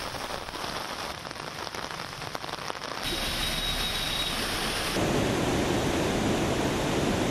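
Heavy rain falling steadily. About three seconds in it gives way to a bus's wheels pushing through floodwater on a road, with a faint steady whine. About five seconds in comes the louder rush of water pouring over a flooded lake's overflow weir.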